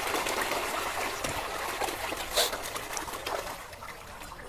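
A mass of koi thrashing at the water's surface as they are fed, a steady splashing and trickling of water with many small splashes. One louder splash comes about halfway through.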